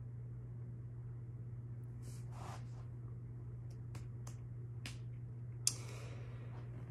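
Quiet room tone with a steady low electrical hum. A person makes a few small mouth clicks, then a sharper click a little before the end followed by a short breath out through the nose.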